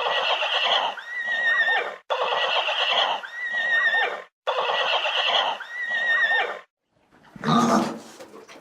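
A horse neighing, the same recorded whinny played three times in a row, each about two seconds long with a brief gap between. About seven seconds in, a short, different animal sound breaks in.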